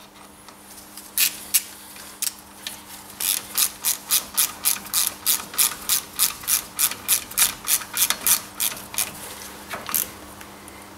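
A ratchet wrench clicking as it runs down the countersunk screw that holds a new brake disc to the hub: a few separate clicks at first, then a steady run of about three clicks a second for several seconds, and one last click near the end.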